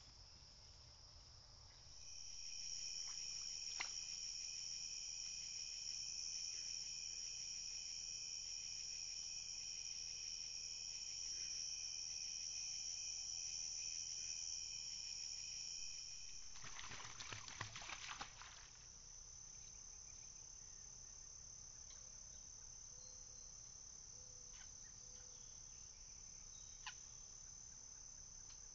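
Steady chorus of crickets and other insects, several high trills layered together, growing louder about two seconds in. A short noisy burst with a few clicks follows past the middle, after which a single thinner high trill carries on, with one sharp click near the end.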